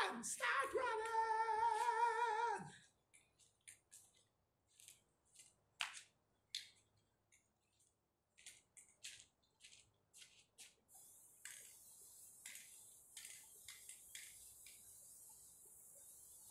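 A voice singing or humming a wavering, held melody for the first few seconds, then only scattered faint clicks, and a faint steady hiss that comes in about eleven seconds in.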